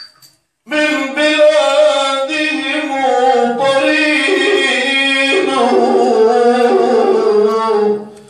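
A man's voice singing an Islamic nasheed unaccompanied, in long ornamented phrases whose pitch winds up and down. It comes in about a second in after a short pause and fades out near the end.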